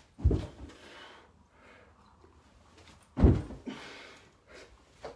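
Clap press-ups on a carpeted floor: two reps about three seconds apart, each a hard, forceful breath out with a dull thud as the body pushes off and lands.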